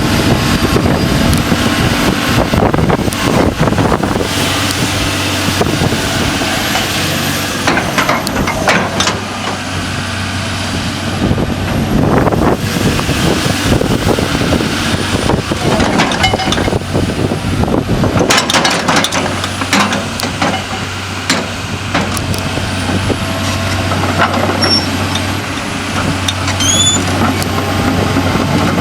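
John Deere 250G LC hydraulic excavator running and working: a steady diesel engine hum under broad hydraulic noise, with scattered clanks and knocks throughout.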